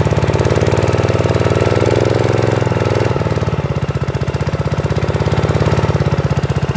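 Kubota GS280 single-cylinder gasoline engine running steadily with an even firing beat while it drives a high-pressure water pump. Its throttle is being opened up from idle, and the note shifts about three seconds in.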